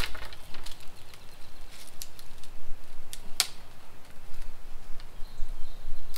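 Dry sticks and brush crackling and snapping as they are broken and moved aside, an irregular run of small cracks with one sharper snap about three and a half seconds in.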